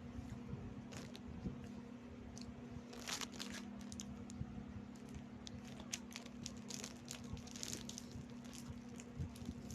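Rebisco biscuits being bitten and chewed close to the microphone, in a run of irregular crisp crunches, with a wrapper crinkling about three seconds in. A steady low hum runs underneath.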